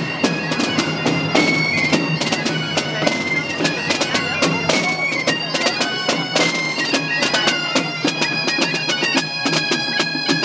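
Mallorcan bagpipes (xeremies) playing a tune over a steady drone, with small pipes (flabiols) and small rope-tensioned drums (tamborins) beating along.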